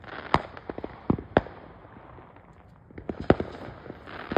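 Fireworks going off: a string of sharp bangs and smaller pops, one cluster in the first second and a half and another about three seconds in.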